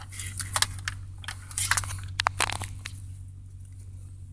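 GMC Sierra 5.3L V8, exhausting through a Flowmaster Super 44 muffler with no catalytic converters, idles as a steady low drone, heard from inside the cab. Scattered clicks and rustles of things being handled sit over it.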